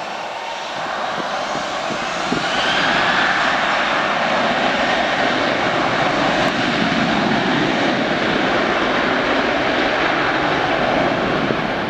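Boeing P-8A Poseidon's twin CFM56 turbofan engines running as the jet rolls along the runway. About two seconds in they get louder, with a rising whine, then hold a steady loud jet noise.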